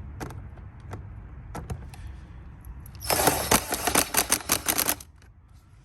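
A socket ratchet clicking fast for about two seconds as it loosens a 5/16 fastener on the air intake, after a few separate clicks of the tool being fitted.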